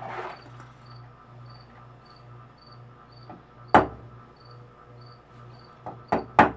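Metal clicks from a small hand tool working on an 1894 Barnes lathe's headstock spindle and cone pulley: one sharp click about four seconds in and several quick ones near the end. Behind them, a faint high chirp repeats steadily about twice a second.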